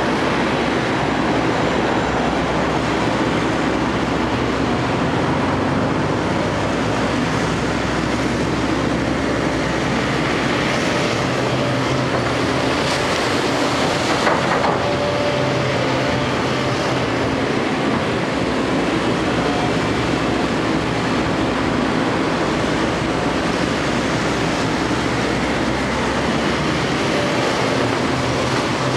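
JCB JS220 hydraulic excavator's diesel engine running steadily as the machine digs. About halfway through, a bucket load of wet mud and water splashes down.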